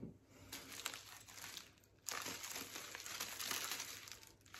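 Clear plastic wrapping crinkling as a long wrapped package is handled, faint at first and louder and denser from about two seconds in.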